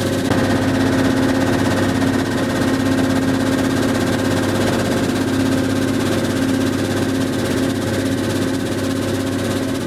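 Mobile crushing and screening line (jaw crusher, cone crusher and horizontal screener) running under load, a steady engine hum at a constant pitch.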